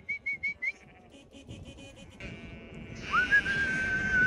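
Merino ewes and lambs being mustered: a quick run of short high chirps at the start, then one long, steady high call in the last second, over a growing rustle of the mob moving.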